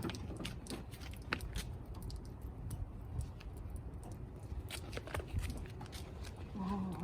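Scattered light clicks and taps, irregular and close together, over a low background rumble.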